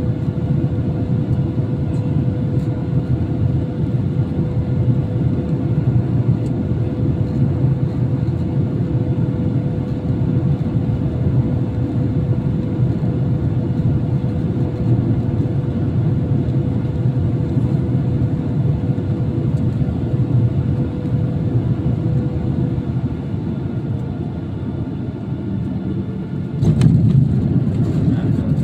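Cabin noise of a Boeing 737-800 on final approach: a steady engine and airflow rumble with a thin steady whine. The rumble eases a little, then near the end the main wheels touch down and the noise jumps suddenly louder as the tyres roll on the runway and the spoilers come up.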